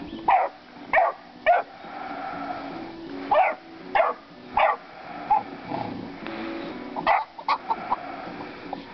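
Catahoula puppies baying at chickens: short, high-pitched barks in bunches of two or three, about ten in all.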